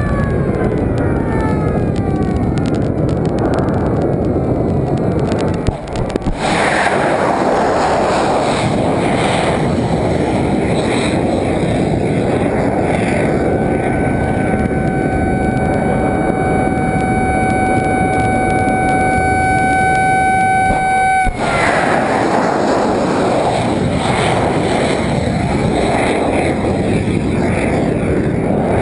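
Tomahawk cruise missile launch from a destroyer: a continuous loud rocket-booster roar that swells about six seconds in. A steady whistling tone rides over it through the middle, then breaks off and slides down in pitch about two-thirds of the way through.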